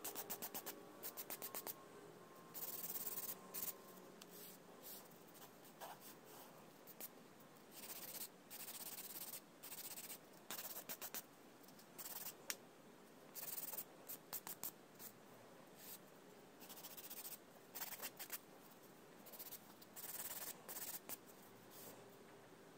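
A hand nail file (100/180 grit) rasping across a cured acrygel nail, in runs of quick short strokes and longer single sweeps.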